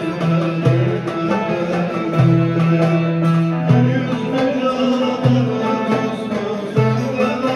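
Live Turkish folk music on a bağlama and a cümbüş, plucked melody lines over sustained low notes that change about every second.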